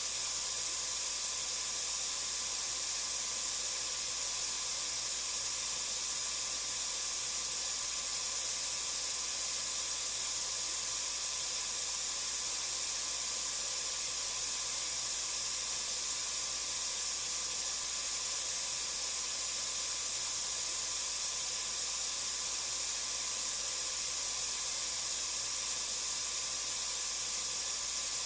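Vacuum cleaner running steadily: an even, hissing rush of air with a thin, high, steady whine from the motor.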